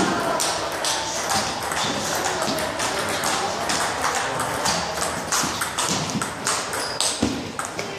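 Table tennis rally: the ball clicking off the players' bats and bouncing on the table in quick, uneven succession.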